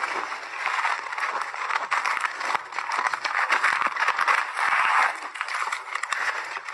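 Crushed refrozen ice crunching as a gloved hand digs into it and squeezes it together in a metal pan: a dense, continuous crackle of many tiny clicks.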